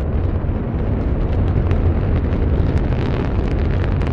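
Distant roar of the Antares rocket: a deep, continuous rumble with crackling that grows denser about a second in.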